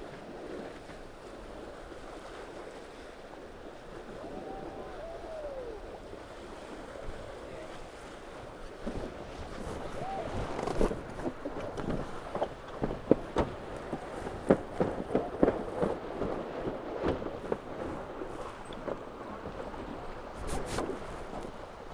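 Water rushing along a Tornado catamaran's hulls with wind on the microphone. From about halfway through, a run of sharp, irregular knocks and clatters.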